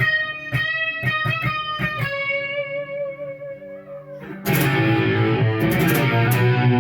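Electric guitar played through a Marshall MG100HFX amp's crunch channel. Single picked notes ring out first. About four and a half seconds in, loud, distorted strummed chords come in.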